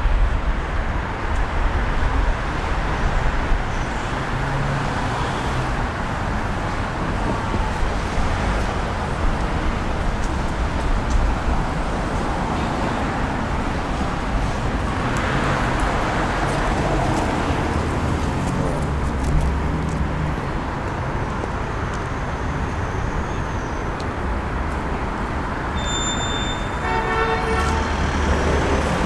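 Road traffic on a busy city avenue: a steady wash of cars driving past with low engine rumble. Near the end comes a brief run of high tones.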